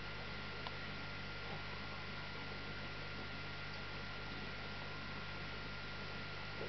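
Steady electrical hum with hiss and two thin high tones, unchanging throughout, with a faint tick about half a second in.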